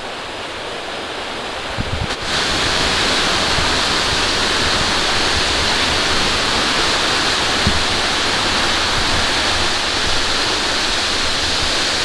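Steady rushing of a cascading waterfall over rocks, louder from about two seconds in.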